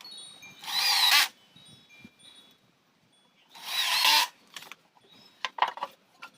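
Power drill driving screws while fitting auto-close hinges. It runs in two short bursts about three seconds apart, its motor whine bending in pitch. A few light clicks follow near the end.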